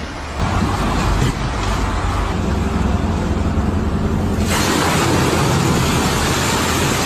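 A heavy vehicle's engine running steadily, with a loud rushing noise joining about four and a half seconds in.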